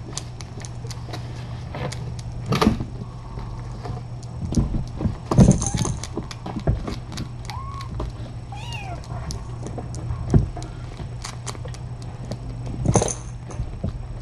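Kittens moving, playing and eating, heard as frequent small clicks and knocks with a few louder knocks, over a steady low hum. A kitten gives a couple of short mews a little past the middle.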